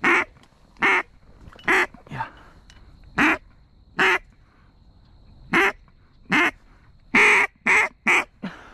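Mallard duck call blown in quacks: about ten short, loud single quacks roughly a second apart, the last three coming quicker, calling to a duck that may be coming in.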